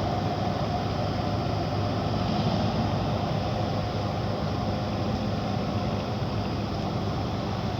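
Ship's engine running steadily: a constant low drone with an even rushing noise over it.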